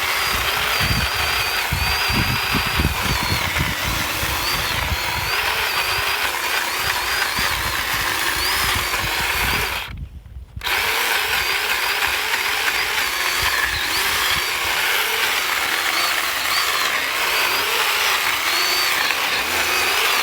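Electric chainsaw cutting a notch into a dead pine trunk, its motor whine wavering as the chain bites under load. The sound cuts out suddenly for about half a second halfway through, then the saw runs again.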